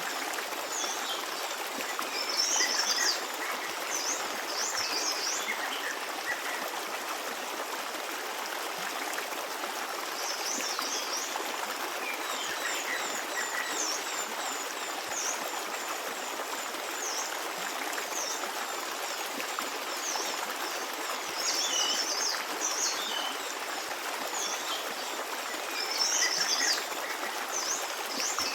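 Forest stream babbling steadily, with songbirds chirping and trilling over it in several bursts.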